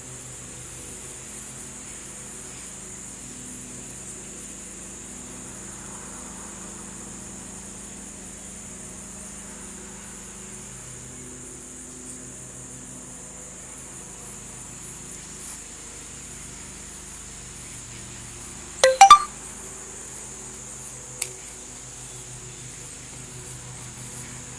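Steady high-pitched drone of insects over a low hum. About 19 seconds in comes a brief, loud rattling burst, and a single click follows two seconds later.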